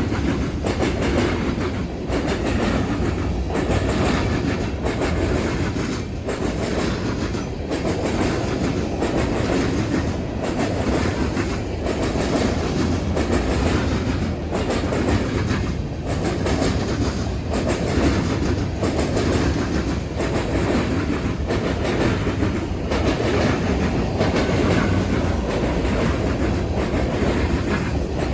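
Freight cars of a BNSF train rolling past, their wheels clattering steadily as they cross a railroad diamond.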